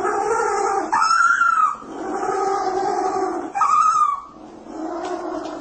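An animal screaming in about five drawn-out, pitched cries in a row, each up to about a second long.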